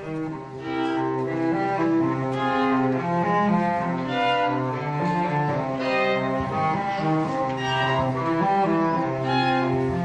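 Chamber string ensemble of cello and violins playing slow, sustained bowed notes, with the cello's line underneath.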